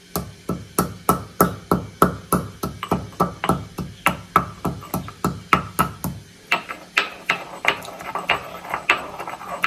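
Black peppercorns being pounded to powder with a mortar and pestle: steady, even strikes about three a second, each with a short ring.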